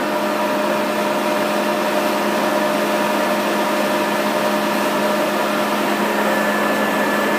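Poreba TR135B2/3M heavy-duty lathe running under power, its carriage driven along the lead screw through the closed half nut in threading feed. It makes a steady mechanical hum with several steady tones.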